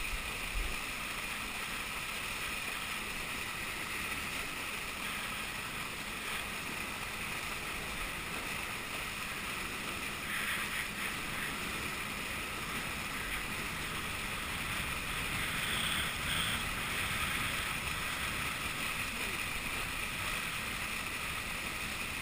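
Steady rush of wind and spraying water while water skiing behind a towboat, with the boat's engine running under it.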